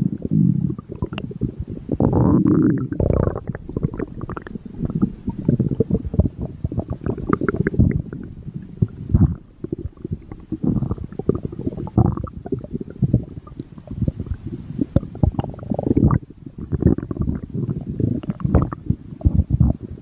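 A mink's stomach growling: an irregular run of low gurgles and rumbles with short pops, swelling into louder spells every few seconds.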